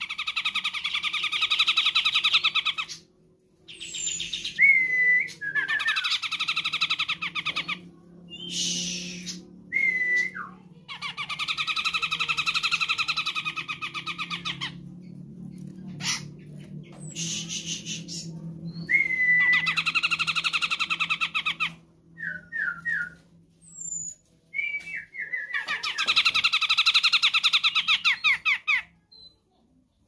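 Cucak jenggot bulbul calling: about five long, rapidly trilled phrases of two to four seconds each, with short rising whistles and chirps between them.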